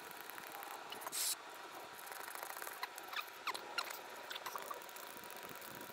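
Faint short squeaks, several in a row between about three and four and a half seconds in, after a brief hiss about a second in, while gear oil is fed through a plastic tube into a differential's fill hole.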